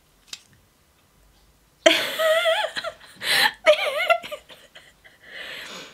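A woman laughing: a short pause with a faint click, then bouts of high, wavering giggles starting about two seconds in, trailing off into breathy laughter near the end.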